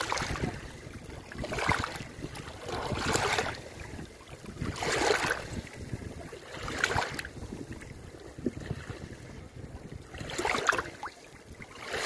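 Small waves lapping onto a sandy shore and washing around algae-covered rocks, each wash a short hissing splash, one every one to two seconds. A low steady rumble runs beneath them.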